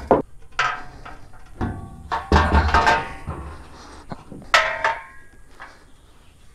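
Aluminium motorcycle loading-ramp sections knocking and clanking together as they are handled, several sharp metallic clanks each with a short ring. The loudest clanks come about two and a half and four and a half seconds in.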